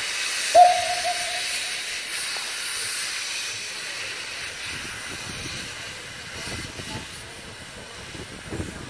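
Narrow-gauge steam locomotive's cylinder drain cocks blowing off steam in a loud hiss that slowly fades as it moves off. About half a second in, a short single-note whistle toot sounds.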